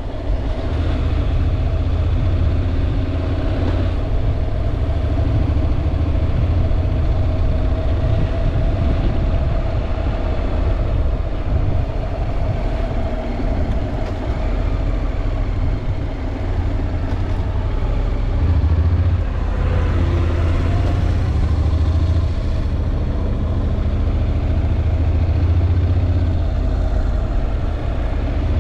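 Honda NC750X motorcycle's parallel-twin engine running steadily, with a strong low rumble and an even pitch throughout.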